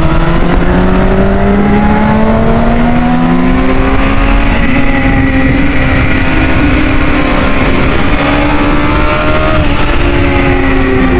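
Honda 600 cc inline-four motorcycle engine running hard at high revs, its pitch climbing slowly for the first few seconds, holding, then dipping briefly near the end before rising again.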